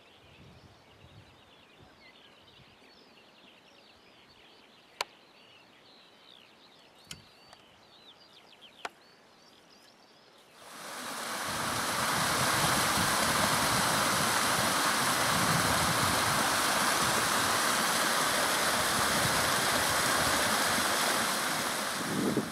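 Faint bird chirping with a few sharp clicks. About ten seconds in, a loud, steady rushing noise like running water fades in and holds, then stops just before the end.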